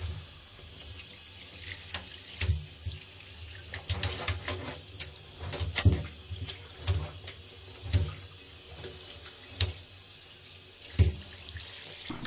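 Bath water splashing and sloshing as a cat paddles through it, in irregular strokes about once a second.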